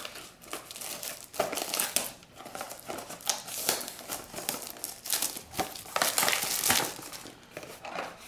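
Packaging being crinkled and pulled open by hand, an irregular run of rustling bursts.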